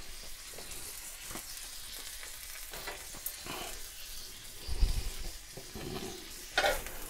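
Freshly torch-seared tri-tip steak on a cast-iron griddle, sizzling faintly. There is a dull bump about five seconds in, and a short metal clink of tongs near the end.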